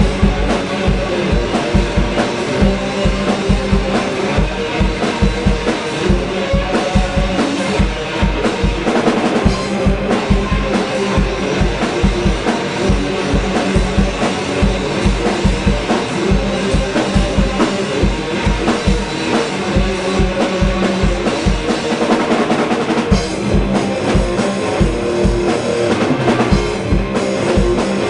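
Rock band playing live: electric guitar through an amplifier stack, over a drum kit with a steady, driving bass drum and cymbals.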